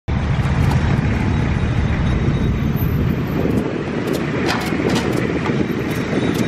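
Street traffic: a steady low rumble of passing vehicles, heaviest for the first three seconds or so and then easing, with a few light clicks in the second half.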